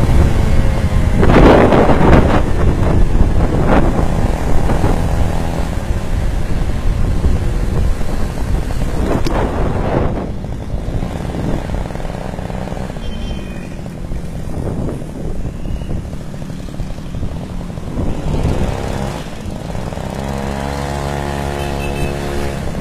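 Small engine of a stand-up gas scooter running while it is ridden, with wind buffeting the microphone, strongest in the first few seconds. Near the end the engine note rises and then holds steady.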